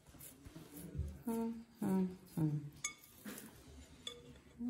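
A few short hummed vocal notes, each held briefly on one pitch, with a sharp click near three seconds in and faint handling noise.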